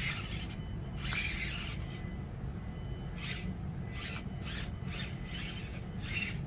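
Axial SCX24 micro RC crawler driving over the course, giving raspy whirring and scraping in short, uneven bursts as the throttle is worked, over a low steady hum.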